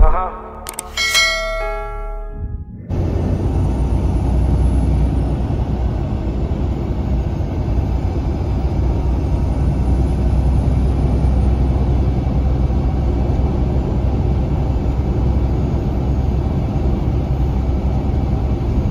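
A few short bell-like chime tones from a subscribe-button animation sound effect. About three seconds in, these cut to steady road noise heard from inside a vehicle cruising on a highway: a continuous low rumble of engine and tyres.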